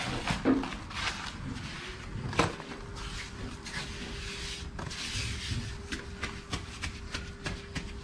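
Sand-cement mortar being scooped from a bucket and pressed and scraped onto a mould with gloved hands and a trowel: a run of gritty scrapes and small taps, with a sharp knock about half a second in and another about two and a half seconds in. A faint steady hum sets in about two seconds in.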